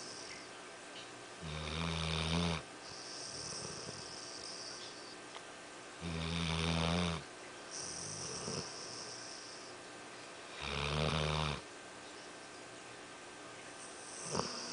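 A sleeping dog snoring: three loud, low snores about four and a half seconds apart, with a softer hissing breath between them.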